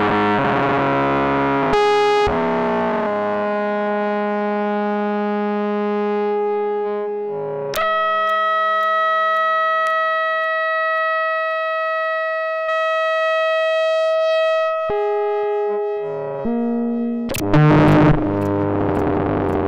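Korg MS-20 analog synthesizer playing a self-running patch through delay and reverb: long held tones that jump to a new pitch every few seconds, several of the changes starting with a sharp click.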